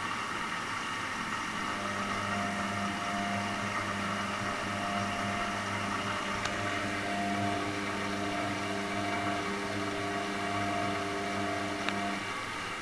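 Washing machine running with a steady noise; its motor hum comes in about two seconds in and stops near the end, with a couple of faint ticks.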